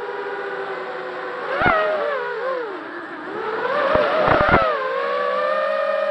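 Brushless motors of a ZMR250 FPV quadcopter whining, the pitch falling, dipping and rising again as the throttle changes. A sharp knock about a second and a half in and a quick cluster of knocks around four seconds in.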